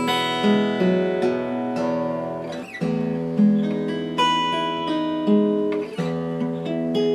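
Martin GPC PA3 acoustic guitar with rosewood sides, played unplugged. Picked and strummed chords ring out, with short breaks about three and six seconds in.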